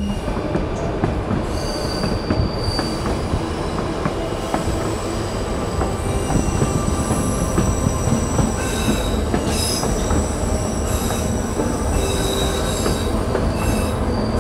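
Passenger car of the White Pass & Yukon Route narrow-gauge train running on the rails with a steady rumble and rattle, heard from the car's open platform. Over it, steel wheels give several high squeals that come and go, more often in the second half, as the train rounds a curve.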